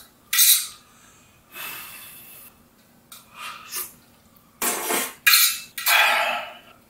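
A person slurping hot instant ramen noodles. It comes as a string of short, hissy slurps and breaths, the loudest in the second half.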